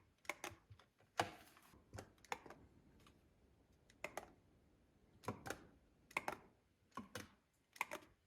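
Short, sharp plastic clicks and taps from handling LED puck lights and their remote, about a dozen spread irregularly, several coming in quick pairs.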